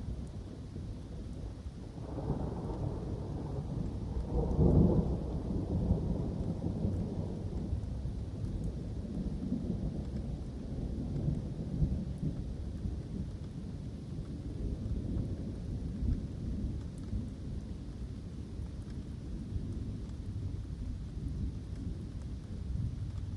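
Thunder rumbling over steady rain in woodland. The rumble swells about two seconds in and peaks near five seconds, with smaller rolls later, while the rain hiss stays even throughout.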